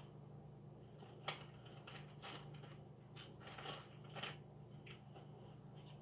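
Faint metallic clicks and rattles of a key being worked in a padlock that will not unlock, a few scattered ticks with the sharpest about a second in.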